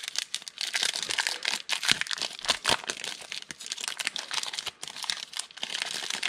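Foil trading-card pack wrapper being torn open and crinkled by hand, a dense continuous crackle.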